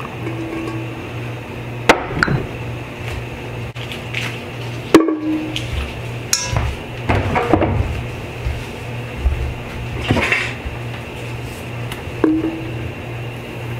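Sharp knocks and clinks of kitchen utensils against an enamel cooking pot on the stove as butter is put into oil in it, the loudest about two and five seconds in, over a steady low hum.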